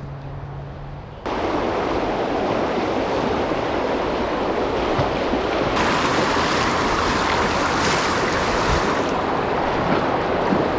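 Rushing stream water: a loud, steady rush that starts abruptly about a second in, after a quieter flow, and grows brighter and hissier for a few seconds past the middle.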